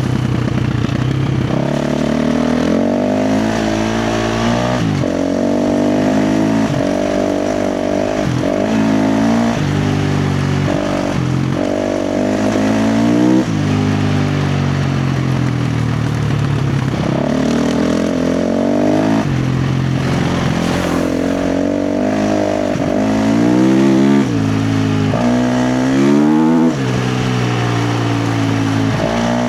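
KTM 350 XC-F dirt bike's single-cylinder four-stroke engine ridden hard, its pitch rising again and again under throttle and dropping sharply at each shift or throttle chop.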